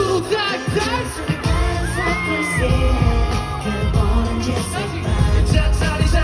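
A pop song performed live, with the group's male voices singing over a loud backing track with a steady beat.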